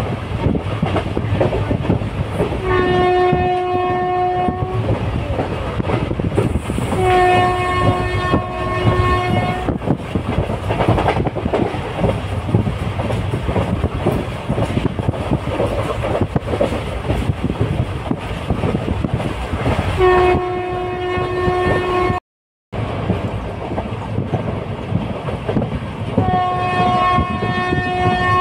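Train horn sounding four long blasts of about two seconds each, over the steady rumble and clatter of a train's wheels on the rails.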